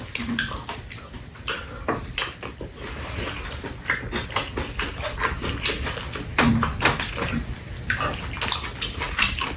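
Metal spoons clicking and scraping against bowls, with chewing and slurping of fried rice and soup. A steady low rumble runs underneath.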